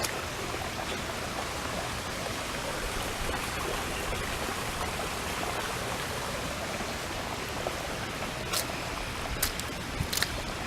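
Floodwater rushing steadily, with a few short sharp clicks near the end.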